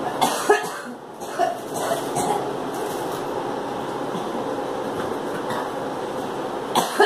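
A girl coughing: a cluster of short, sharp coughs in the first two seconds and another pair just before the end, over a steady background noise.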